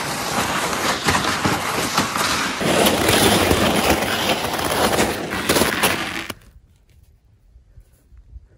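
Footsteps crunching through crusted snow, a dense, loud crunching that stops abruptly about six seconds in, leaving only a faint background.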